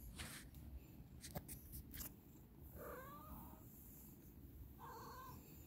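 Domestic cat purring faintly, a steady low rumble, with two short soft vocal sounds about three and five seconds in and a few light clicks in the first two seconds.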